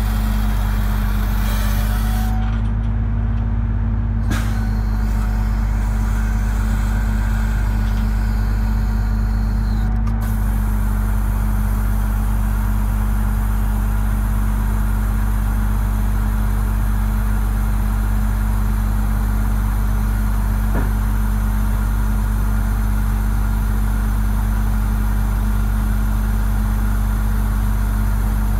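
Truck engine running steadily to drive the hydraulics of a Palfinger PK 32080 knuckle-boom crane as the boom is folded up: a constant, even drone.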